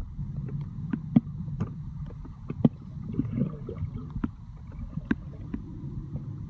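Underwater sound picked up by a phone filming below the surface: a dull, steady low rumble of moving water, with irregular sharp clicks and knocks about once or twice a second.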